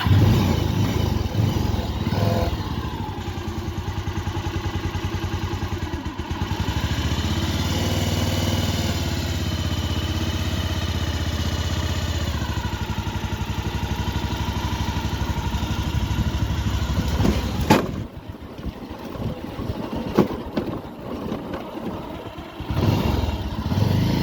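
Motorcycle engine running while riding, steady with slight shifts in pitch. A sharp click comes about three-quarters of the way through, after which the engine sound drops and goes uneven.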